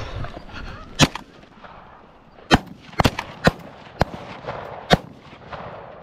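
A volley of about six shotgun shots at geese, the first about a second in and the rest coming unevenly over the next four seconds.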